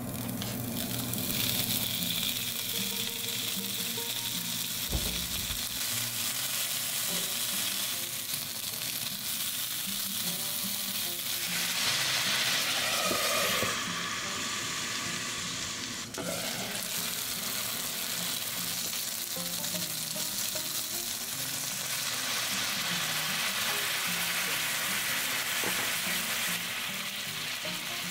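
Pork-wrapped asparagus rolls sizzling in a hot frying pan. About halfway through the sizzle turns to a louder hiss as water goes into the pan for steaming, then it is muffled briefly once the lid is on.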